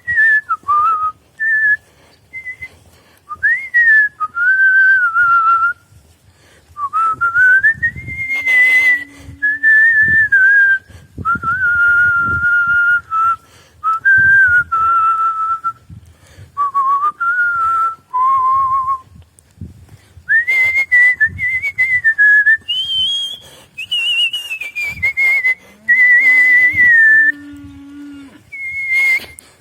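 Artistic whistling: a person whistling a melody in phrases of held notes and smooth pitch glides, with short breaks between phrases. A lower steady tone sounds briefly twice under the whistle.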